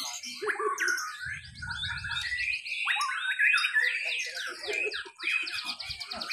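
White-rumped shamas singing in a contest duel: loud, varied whistled song with notes sweeping up and down, broken by fast rattling trills midway and near the end, several birds overlapping.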